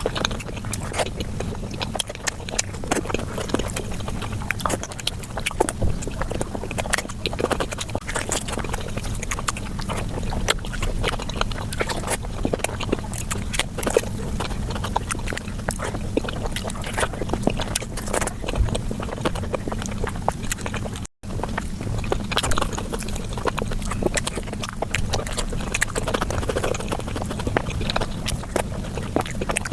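Eating sounds played back at five times speed: a fast, dense run of wet chewing, lip smacking and mouth clicks over a low rumble, with a brief break to silence about two-thirds of the way through.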